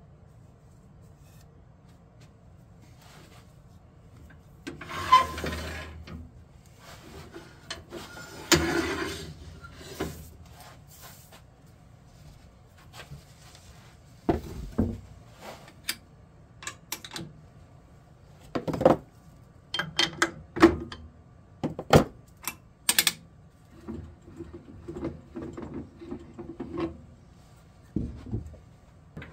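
Hands working a cherry-burl plate blank on a stopped wood lathe: two brushing, rubbing stretches, then a run of sharp knocks and clicks of wood and metal as the blank and its chuck come off the lathe spindle and are set down on the bench.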